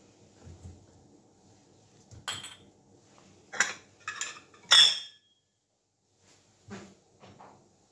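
Porcelain coffee cups and a saucer clinking and knocking as they are set down and arranged on a tray. There are four sharp clinks between about two and five seconds in, the last the loudest, then two softer knocks near the end.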